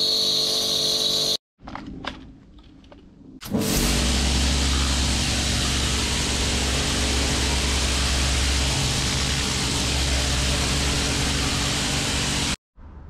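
Kärcher K4 electric pressure washer running, its motor and pump humming under the hiss of the dirt blaster lance's jet spraying paving. The sound breaks off abruptly about a second and a half in, leaving a quieter stretch with a few clicks, then starts again about three and a half seconds in and runs steadily until it stops abruptly near the end.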